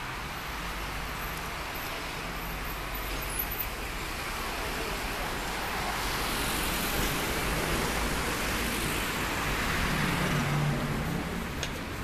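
Street traffic noise, swelling as a vehicle passes close and peaking about ten seconds in before fading.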